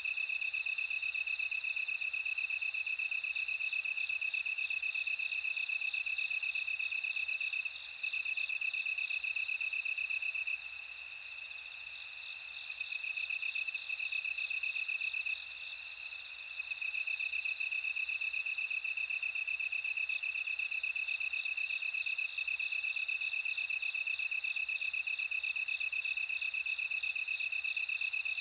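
Bell crickets and other crickets chirping in a layered chorus: one steady pulsed trill underneath, with higher ringing trills starting and stopping over it. The whole chorus drops a little in loudness for a couple of seconds near the middle.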